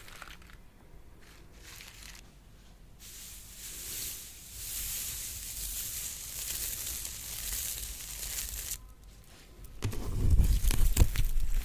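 Slime being handled and mixed by hand: crinkly crackling that turns, near the end, into louder squishing with many small clicks and pops.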